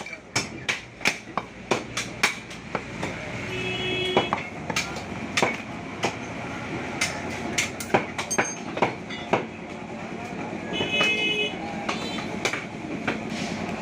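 Butcher's cleaver chopping beef on a wooden block: a run of sharp, even chops, about two or three a second, that later come more sparsely, over the din of a busy market. A short tone sounds twice, about four seconds in and again near the end.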